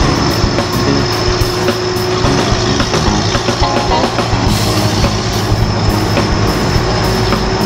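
Steady highway traffic noise: tyres on the road surface and engine noise from vehicles, including a box truck running alongside.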